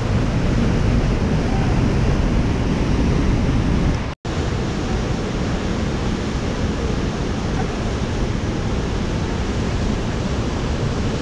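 Steady rush of whitewater pouring over falls and through rapids, heaviest at the low end. The sound cuts out for a moment about four seconds in.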